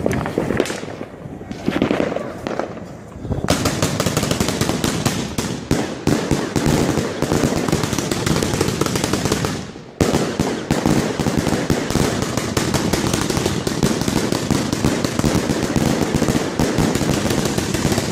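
Genesis compound firework cake firing shot after shot in rapid succession, a dense run of bangs and crackles. After a softer first few seconds the firing goes on at full pace, drops away briefly about ten seconds in, then starts again abruptly just as densely.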